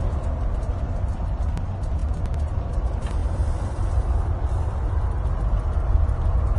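Low, steady rumble of a very large container ship, the CMA CGM Kerguelen, passing close by.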